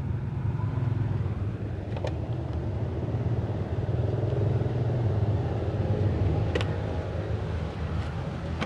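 A steady low engine-like hum, with a couple of light clicks, the first about two seconds in.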